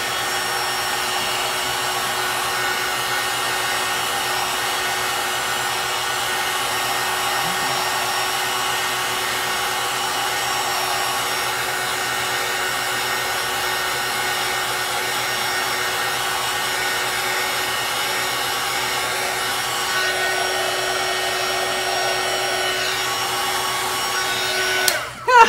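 Heat gun blowing steadily with a faint hum, switched off about a second before the end.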